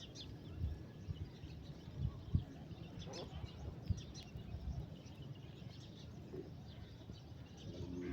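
Faint, scattered bird chirps over a low background rumble.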